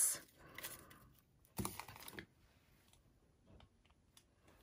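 Faint rustling and a short run of soft clicks as a roll of mini glue dots is handled and set down on the work mat, then near quiet.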